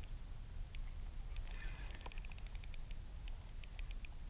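Spinning reel clicking as it is cranked against a hooked, fighting fish: scattered sharp ticks, with a quick run of them about a second and a half in, over a low steady rumble.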